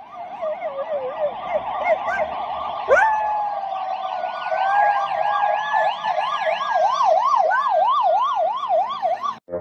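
Siren wailing with a pitch that sweeps rapidly up and down, several times a second. About three seconds in, a sharp click is followed by a second, steadier tone that holds on top of it.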